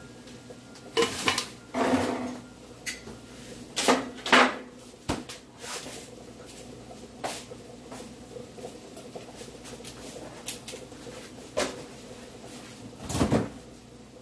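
Irregular knocks and clatters of kitchen containers being handled on a stone countertop beside a stainless steel mixing bowl, loudest about a second in, about four seconds in and near the end.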